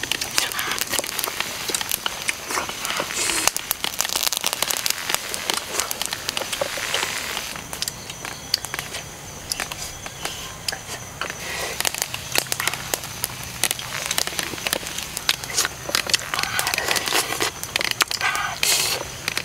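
Wood fire and glowing coals crackling, with a steady stream of sharp pops and snaps.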